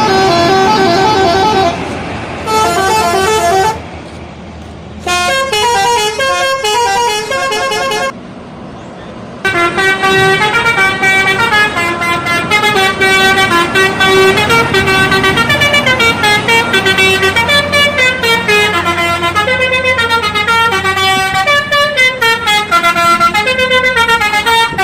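Bus telolet horn, a set of air trumpets switched in sequence, playing short tune phrases with gaps between them. From about ten seconds in it plays one long unbroken run of quickly changing notes. A low engine hum runs underneath.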